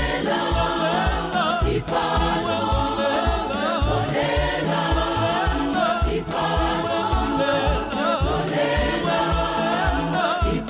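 Church choir singing a gospel song in harmony, many voices together over a steady low beat.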